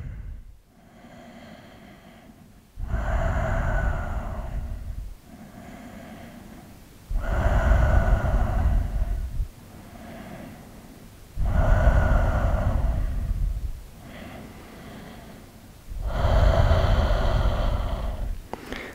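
A man breathing slowly and deeply while holding a balance pose: four loud breaths about four seconds apart, with quieter breaths between them.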